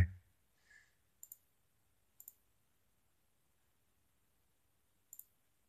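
Computer mouse button clicking three times, each a quick press-and-release pair of faint clicks: about a second in, about two seconds in, and near the end.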